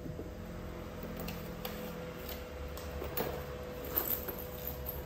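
Faint, scattered light clicks and taps of small screws and parts being picked through and handled while a fitting screw is sought, over a steady low hum.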